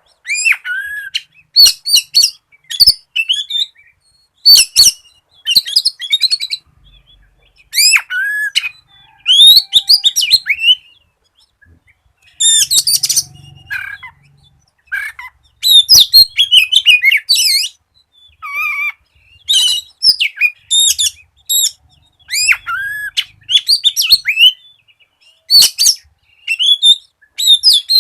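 Oriental magpie-robin in full song: quick, varied phrases of whistles and trills, each lasting about a second, with short pauses between them.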